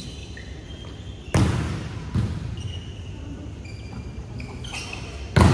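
Volleyball being struck hard during a rally on an indoor court: a loud smack about a second in, a lighter hit shortly after and another loud one near the end, each ringing in the hall. Short sneaker squeaks on the court floor come in between.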